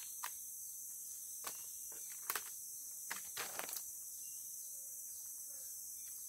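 Steady high-pitched insect chorus of crickets chirring, with a few short sharp clicks or snaps over it, the loudest about two seconds in and a quick cluster of them around the third second.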